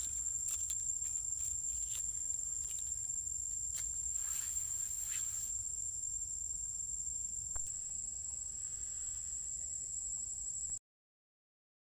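Outdoor ambience: a steady high-pitched insect drone over a low rumble, with scattered rustles and clicks of dry leaf litter as macaques scuffle on the ground. The sound cuts off abruptly near the end.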